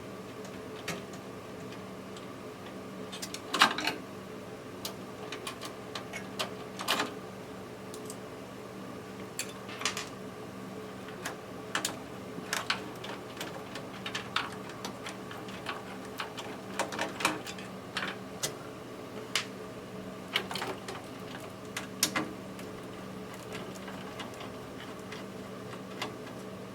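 Scattered clicks and small metal taps of a screwdriver taking the screws out of a PC motherboard in its case, the loudest about three and a half seconds in, over a steady hum.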